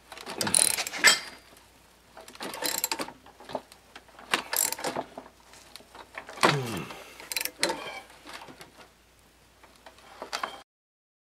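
Socket wrench ratcheting and metal clicking in bursts of about a second as the center screw of a three-jaw gear puller is turned against a pulley seized on a Tecumseh HS40 engine's crankshaft. There is a brief falling tone about six and a half seconds in, and the sound cuts off suddenly near the end.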